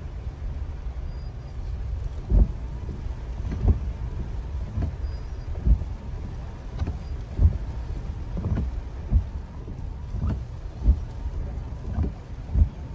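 Car windscreen wipers sweeping rain off the glass, giving a thump at each end of the stroke, about a dozen in all from about two seconds in. Under them runs a steady low rumble of rain on the car.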